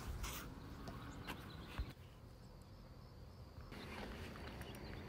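Faint outdoor ambience with a few soft clicks in the first two seconds.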